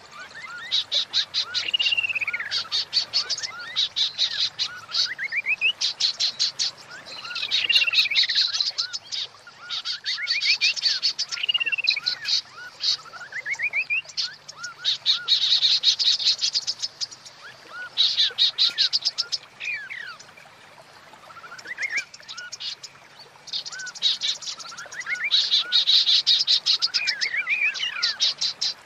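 Female white-rumped shama calling: bursts of fast, high rattling ticks mixed with whistled notes that slide downward, repeated phrase after phrase with short pauses. It is the female's call used to bring male shamas into breeding condition (birahi).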